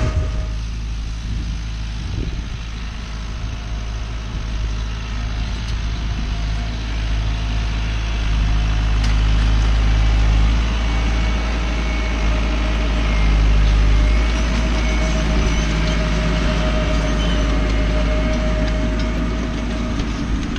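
Tractor engine running steadily while pulling a maize planter through the field, a low drone that grows louder for several seconds in the middle.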